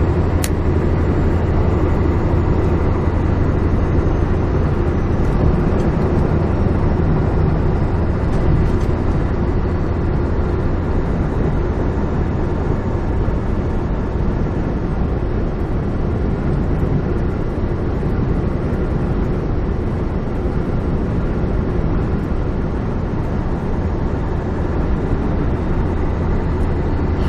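Steady drone of a Kenworth semi truck's diesel engine and road noise, heard inside the cab while cruising at highway speed, with a strong low hum that holds even throughout. A single short click about half a second in.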